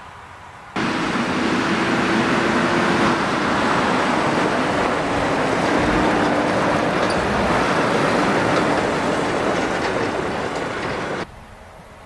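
Volvo FMX 460 tractor unit with a diesel engine pulling a tipper semitrailer along a rough field track close by: engine running under the loud rumble of tyres and trailer. The sound starts abruptly about a second in and cuts off abruptly near the end.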